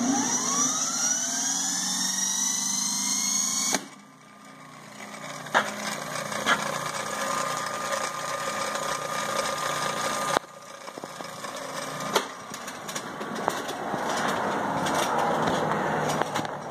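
A 1903 Century 2 hp single-phase induction motor starting and running, its whine rising in pitch and settling over the first few seconds, over a steady low hum. The sound breaks off abruptly and resumes a few times, and a few sharp clicks fall in between.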